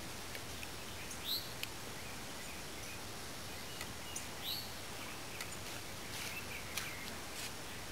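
Steady background hiss with a bird giving a short chirp twice, about a second in and again midway, and a few faint clicks.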